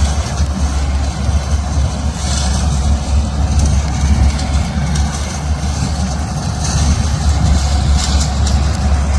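Diesel farm machinery running steadily at close range: a constant low engine rumble with a dense mechanical hiss over it.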